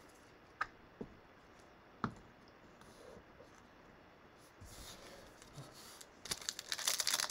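A few light clicks and taps of cards and boxes being handled, then, from about six seconds in, the loud crinkling of a trading-card pack wrapper being pulled open.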